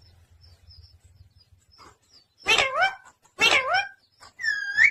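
Pet parrot calling three times in quick succession, short high-pitched squawk-like calls, the last one a rising whistle near the end.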